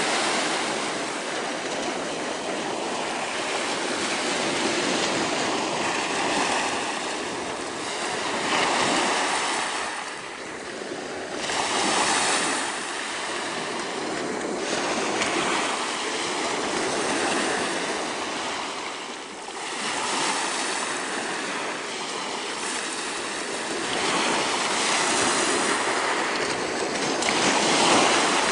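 Sea surf breaking and washing over a pebble shingle beach, the hiss swelling and easing every few seconds as each wave comes in.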